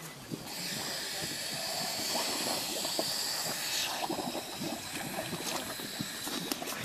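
A steady hiss of air escaping from scuba gear as a pair of safety divers in the ice hole begins its descent. It starts about half a second in, is loudest for about three seconds, then carries on more faintly, with a few clicks near the end.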